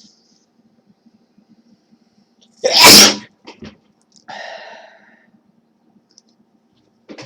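A person sneezes once, loudly, about three seconds in, part of a run of repeated sneezes. A quieter breathy sound follows about a second later.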